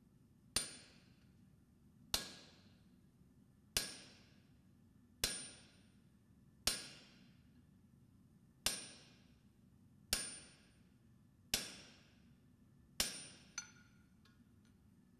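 Blacksmith's hammer striking steel on an anvil while forging an axe: nine slow, evenly spaced blows about a second and a half apart, each ringing briefly, with a lighter extra tap just after the last blow.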